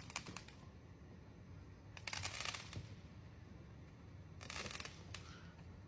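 Fireworks crackling in the distance: three short clusters of rapid popping crackles, near the start, about two seconds in, and about four and a half seconds in.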